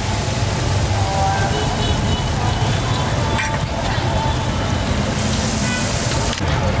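Busy street-market ambience: a steady low rumble of traffic, scattered distant voices, and a hiss that grows louder for about a second past the middle.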